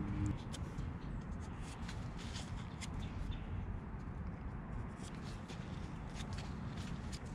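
Scattered small clicks and scrapes as the tip of a MagicEzy 9 Second Chip Fix tube is worked over a chip in a fiberglass boat deck, over a low rumble. A steady hum cuts off just after the start.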